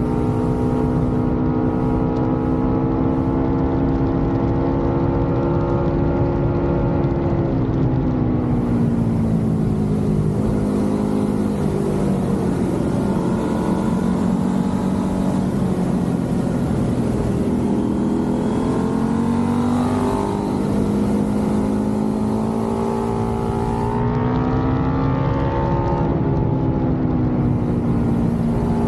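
Motorcycle engine running under way through the gears. Its pitch holds, drops off about a quarter of the way in, then climbs again twice later on. A steady rush of wind noise runs under it.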